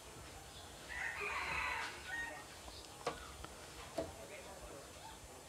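A rooster crowing once, faint, about a second in, followed by two short clicks.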